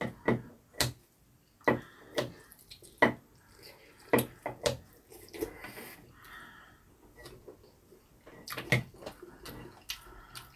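Scattered sharp clinks and clicks of scissors, a ladle and chopsticks against ceramic bowls of beef rib soup, with soft sloshing of broth between them.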